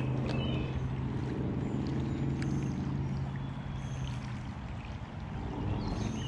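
Shallow creek water running and gurgling steadily.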